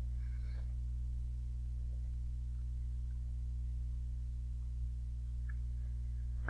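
Steady low electrical hum, with nothing else heard.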